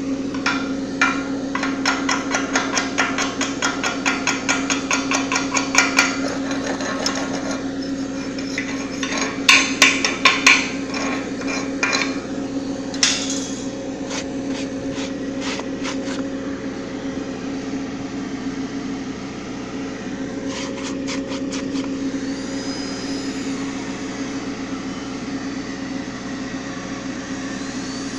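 Quick series of hammer taps on metal, about four or five a second, in several bursts that thin out to scattered strikes in the second half. A steady machine hum runs underneath.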